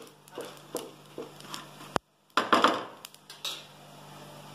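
Metal spatula scraping and knocking against a flat tava as it stirs coconut slices and cashews frying there: a run of short scrapes and clicks, with a louder scraping stroke just after a brief break about two seconds in.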